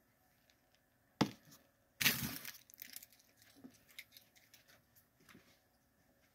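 Handling of a small plastic candy tube of Skittles Littles: a sharp click about a second in, then a loud rattling, rustling burst at about two seconds, followed by scattered small clicks and rustles.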